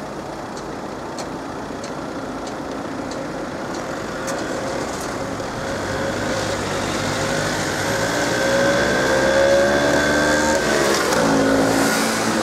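Road traffic pulling away across a level crossing as the barriers lift: car engines build from about four seconds in, one rising in pitch as it accelerates past, with another vehicle passing near the end. Faint regular ticks sound over the first five seconds.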